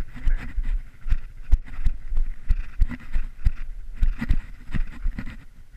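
Footsteps crunching through snow, irregular steps about two or three a second, with knocks and rubbing from the body-worn camera.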